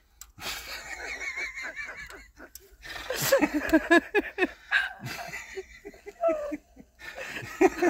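People laughing: several bursts of giggling and chuckling, the strongest a quick run of pulses about three to four seconds in.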